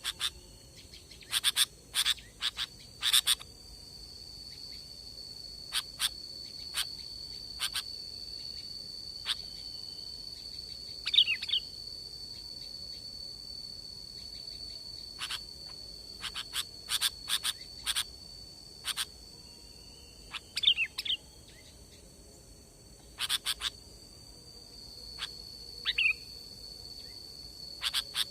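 Sooty-headed bulbul (kutilang) calling: short sharp chirps in quick clusters, with a few short falling notes, over a steady high insect buzz.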